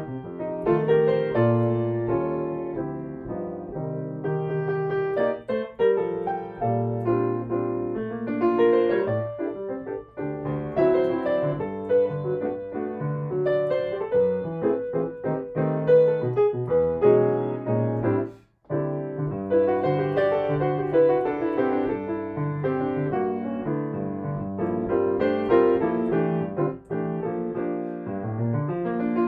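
Solo upright piano playing a jazz standard, chords under a melody line, with one brief break in the sound about two-thirds of the way through.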